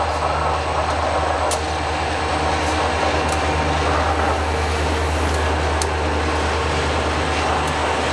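Conrail diesel freight locomotives passing close by: a steady low engine rumble with occasional sharp clicks.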